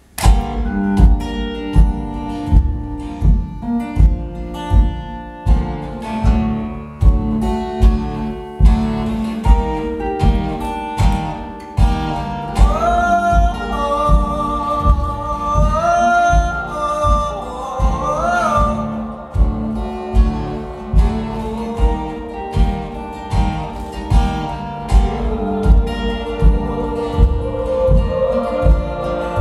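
Acoustic guitar strummed with a steady low thump on the beat. From about twelve seconds in, wordless sung notes hold and slide between pitches over it.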